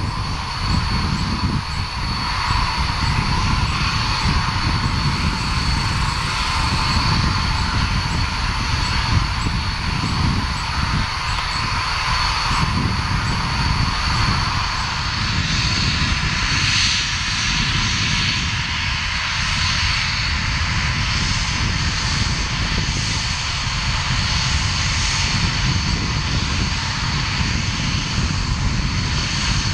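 Dassault Mirage 2000's single SNECMA M53 turbofan running at taxi power as the two-seat jet rolls past: a steady jet engine noise with a constant high whine over it.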